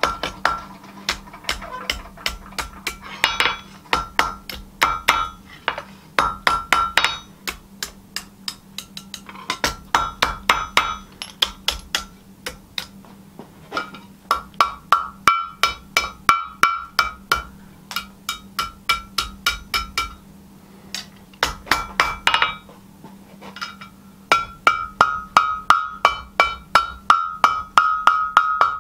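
Hand hammer striking a hot spring-steel knife blank on an anvil, in runs of quick blows, about four a second, broken by short pauses. Each blow rings off the anvil.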